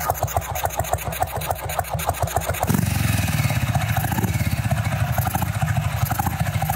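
500 cc Sanglas single-cylinder motorcycle engine idling with an even, slow beat from its rocket-style exhaust, then running faster and a little louder from a little under three seconds in.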